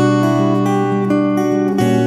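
Acoustic guitar music: strummed chords ringing on, changing to a new chord near the end.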